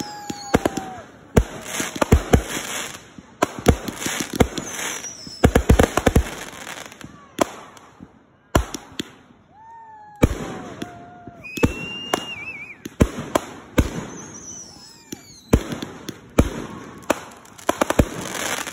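Consumer firework cakes firing in rapid volleys of sharp pops as shots launch and break overhead. There is a lull of about a second and a half near the middle, then the volleys pick up again. A few whistling tones glide between the bangs.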